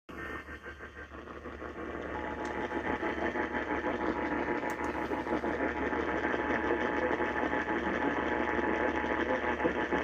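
Tabletop AM radio tuned to 1090 kHz playing through its small speaker: noisy, buzzing AM reception, louder after the first two or three seconds.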